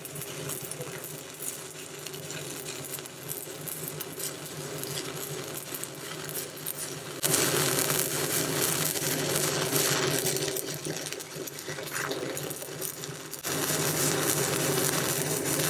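Stick-welding arc crackling and sizzling steadily as an Eagle 823 XS low-hydrogen electrode burns, becoming louder about seven seconds in.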